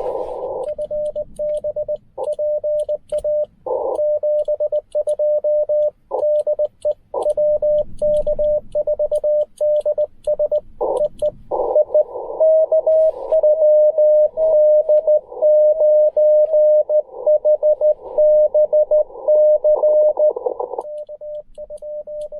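Morse code (CW) from a Ten Tec Argonaut V transceiver. First comes the clean keyed sidetone of the operator sending, with faint clicks from the paddle key. About halfway in it gives way to a slightly higher-pitched received Morse signal keyed over steady band hiss.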